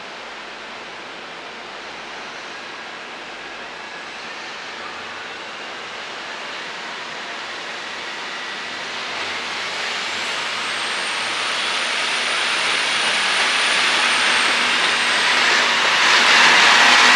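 Electric commuter or express train approaching along the track, its running noise growing steadily louder. A thin high whine rises and fades partway through.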